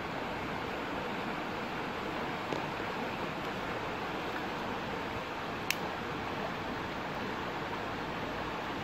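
Shallow stream running over rocks: a steady hiss of flowing water. A single sharp click sounds a little after halfway, with a fainter one earlier.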